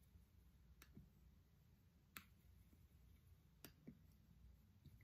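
Near silence with four faint, sharp clicks a little over a second apart, from makeup brushes being handled and wiped clean.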